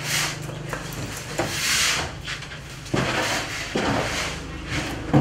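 A few irregular wooden knocks with scraping and rubbing between them, over a steady low hum.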